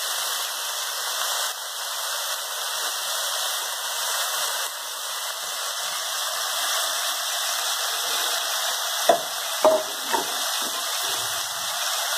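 Small anchovies frying in oil in a wok, sizzling steadily. About nine to ten seconds in, the spatula knocks sharply against the pan three times while stirring.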